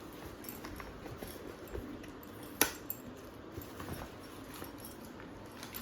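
Gifts being handled and unwrapped: scattered soft taps and rustles, with one sharp click about two and a half seconds in.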